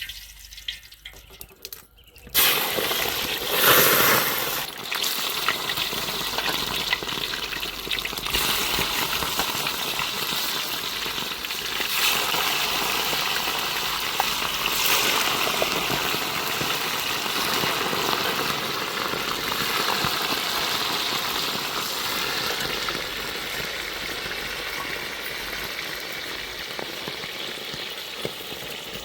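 Food frying in hot oil in a pan, starting suddenly about two seconds in with a loud burst, then sizzling steadily.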